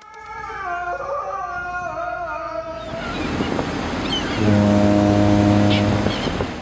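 A passenger ferry's horn gives one steady, low blast of about a second and a half over the rush of harbour water. Before it, a wavering melodic line plays for the first few seconds.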